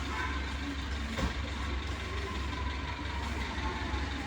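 Steady low hum, with one faint click about a second in.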